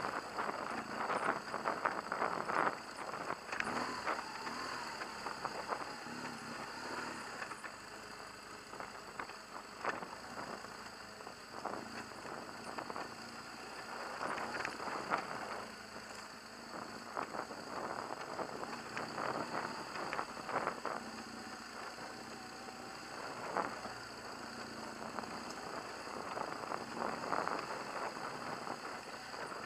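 BMW HP2 Enduro's boxer-twin engine running as the bike rides along a bumpy dirt track, with frequent knocks and rattles as it goes over ruts.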